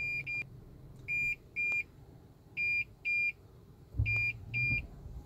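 Toyota Prius Prime's warning buzzer beeping a high, steady tone in short pairs, about one pair every second and a half. It is the parking-sensor fault warning that comes on as the car starts moving, with the Intelligent Clearance Sonar shutting off and asking for the parking assist sensors to be cleaned, though the owner says the sensors are clean.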